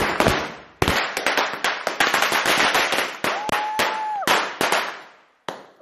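Firecrackers going off in a rapid, irregular series of sharp cracks and bangs that crowd together, then thin out and stop about five seconds in.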